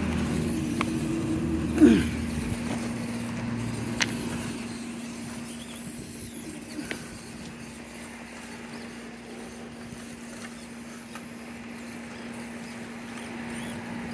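Small RC crawler truck's electric motor and gearing whirring as it crawls over rocks, louder in the first couple of seconds, with a few sharp clicks of tyres and chassis on stone.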